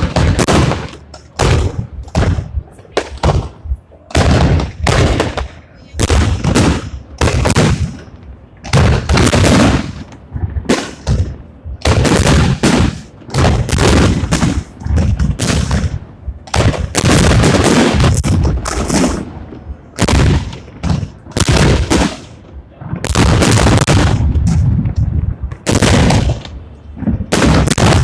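Fireworks salute: aerial shells bursting one after another in loud bangs, often several a second and overlapping, each trailing off in a long echo.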